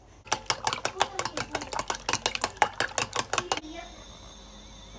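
Knife chopping quickly through pollock roe on a cutting board, about nine sharp taps a second, stopping abruptly about three and a half seconds in. Then a faint steady hiss with a thin high whine from a frying pan heating on an induction hob.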